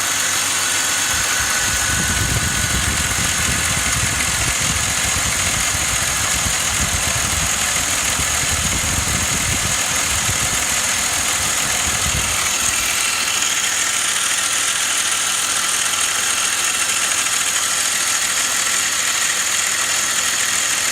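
BMW E39 530i's 3.0-litre inline-six running steadily at idle, with a steady high-pitched hiss over the engine noise; these are the noises, at 150,000 km, that the owner cannot identify. A deeper rumble comes through during the first half and drops away about twelve seconds in.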